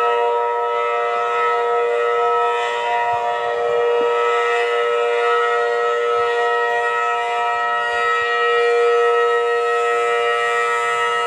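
Federal Signal outdoor warning siren sounding a steady, loud tone made of several pitches at once, holding without rising or falling, with slow gentle swells in loudness.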